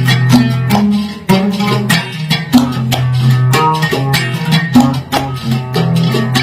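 Instrumental break in a traditional Yemeni song: a plucked string instrument playing a quick run of notes over steady low bass notes, with no singing.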